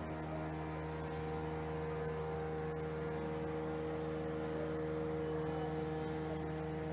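Steady, even hum of several held low tones.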